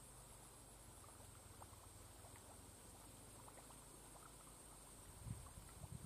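Near silence: faint outdoor background with a steady high hiss and scattered faint ticks, then a few low bumps near the end.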